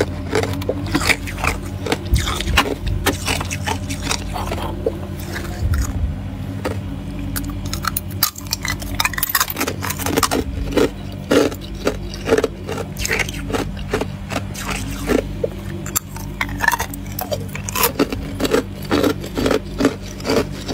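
Frozen ice cubes crunching, cracking and scraping in quick, irregular snaps, with a steady low hum underneath.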